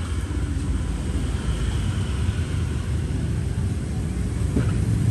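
Steady low rumble of background noise, growing slightly louder towards the end, with one faint click near the end.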